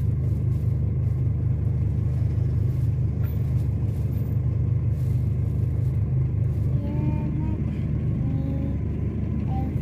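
Steady low rumble of a car's running engine, heard from inside the cabin. A few faint, short high tones come in over it during the last few seconds.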